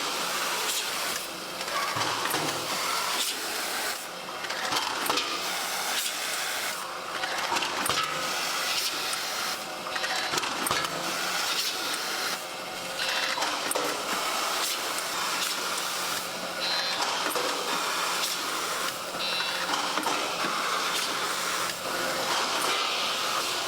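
Large meat processing machine running steadily: a continuous mechanical noise full of small clicks over a steady hum.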